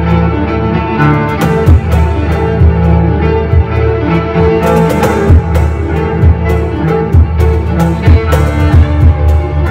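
Live trio of violin, cello and cajón playing a lively fusion piece: the cello holds sustained low notes under the bowed violin line while the cajón taps a steady rhythm.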